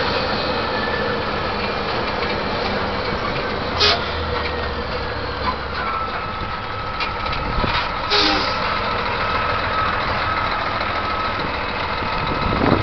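Vehicle engine running steadily, with two short sharp knocks about four and eight seconds in.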